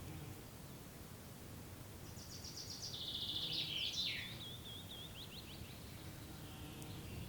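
A songbird sings one phrase about two seconds in: a fast high trill and a jumble of notes, ending in a run of quick rising notes. Under it runs a steady low outdoor rumble from a summer forest clearing.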